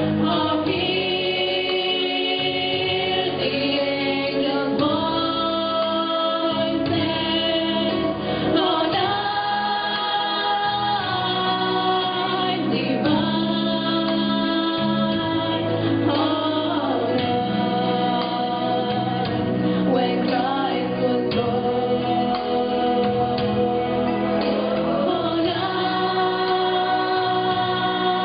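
Christian song with female voices singing long held notes over an accompaniment.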